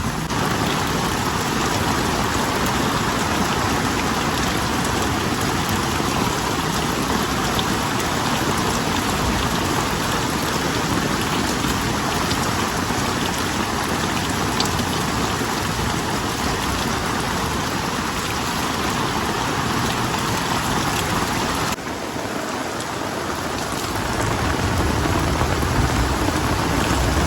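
Heavy thunderstorm rain pouring steadily. Near the end the sound dips for a moment, then a low rumble builds.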